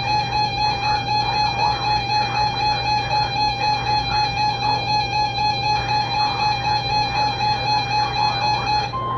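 Emergency Alert System two-tone attention signal: a loud, steady, harsh electronic tone that pulses a few times a second. It cuts off near the end, and a higher single steady tone takes over, the NOAA Weather Radio warning alarm tone that opens the relayed severe thunderstorm warning.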